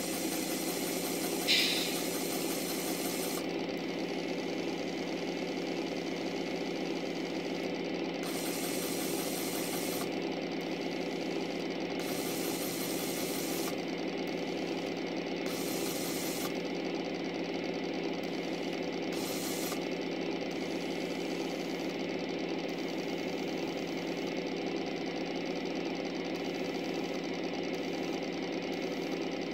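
LGB garden-railway model steam locomotive's small electric motor and gearing running steadily with a fine mechanical buzz. A brief high squeak comes about a second and a half in, and short bursts of hiss come and go several times.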